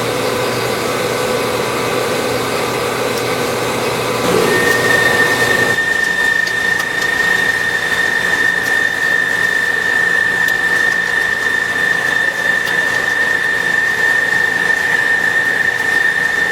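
CNC machine cutting metal: steady machine noise, joined about four seconds in by a steady high-pitched whine that holds through the rest of the cut.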